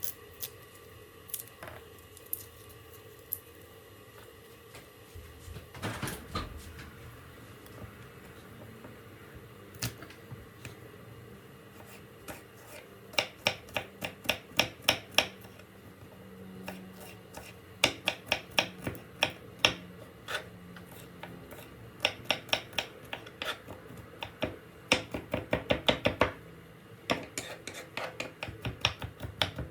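Knife chopping on a cutting board in quick runs of about five strokes a second, with short pauses between the runs.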